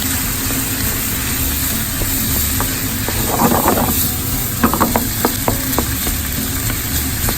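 Kitchen cooking sounds: a steady hiss, with a quick run of light clicks and taps from utensils against cookware about halfway through.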